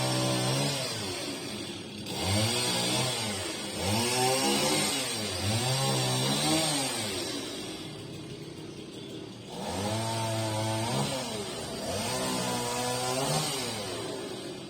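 Chainsaw engine revved up and let back down again and again, about six times, each rev rising in pitch, holding, then falling. The engine drops to a lower, quieter running for a couple of seconds midway.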